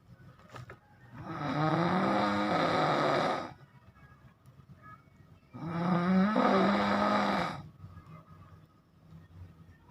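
A person snoring heavily in a slow, regular rhythm. Two long, loud, rasping snores come about four and a half seconds apart, each lasting two to three seconds, with quiet breathing between them.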